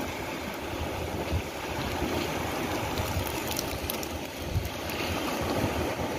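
Wind buffeting the microphone: a steady rush with a gusty low rumble, and a few faint taps.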